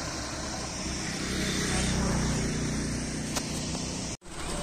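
Bus engine running, louder for a couple of seconds in the middle. The sound drops out for a moment near the end.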